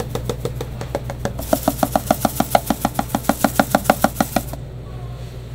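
Dried parsley being shaken from a shaker over sauce-drizzled chimney cakes: a quick, even rattle of about six shakes a second, louder from about a second and a half in, that stops abruptly near the end. A steady low hum runs underneath.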